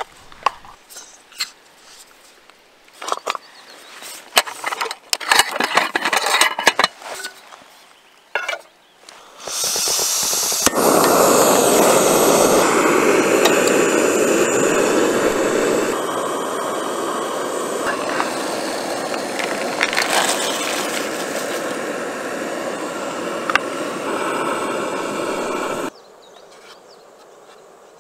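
Clicks and rattles of a portable camping gas stove being handled and screwed onto its canister. About nine seconds in, gas starts hissing, a click follows, and the lit burner runs with a loud, steady hiss under a pot before cutting off suddenly near the end.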